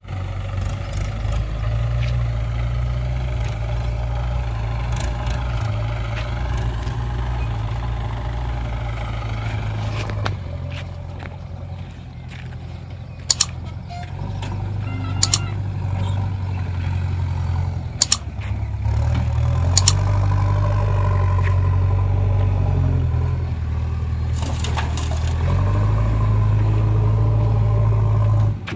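Diesel engines of a JCB 3DX backhoe loader and a Mahindra 575 DI tractor running, with the engine note rising and falling as the loader works. A few sharp knocks are heard in the middle of the stretch.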